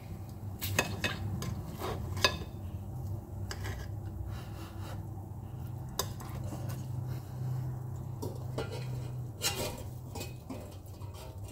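A steel knife and fork cutting into a steak on a ceramic plate, with scattered clinks and scrapes of the metal against the plate, as the steak is cut open to check whether it is done. A low steady hum runs underneath.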